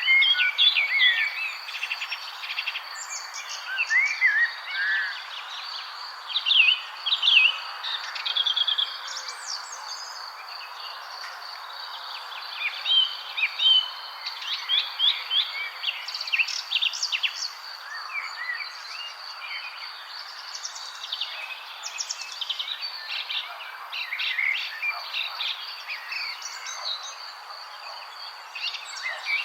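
Several small birds chirping and twittering in short, overlapping calls, some in quick runs, over a steady high-pitched tone in the background.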